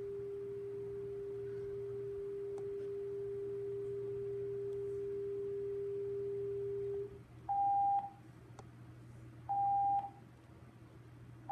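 Broadcast test tones of a TV station's over-the-air proof-of-performance test, played through a TV's speaker. A steady pure tone cuts off about seven seconds in, followed by short, higher-pitched beeps about every two seconds.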